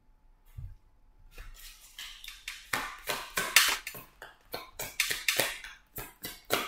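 A tarot deck being shuffled by hand: an irregular run of sharp card slaps and clicks, a few a second, starting about half a second in.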